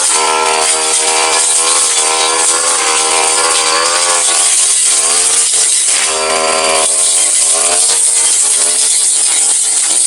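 Petrol brush cutter with a steel blade running at high speed while cutting grass down to the ground, its engine pitch wavering up and down as the blade takes the load.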